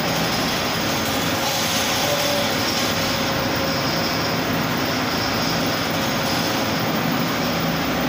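Air compressor running steadily, building pressure toward the cut-off set on its pressure switch.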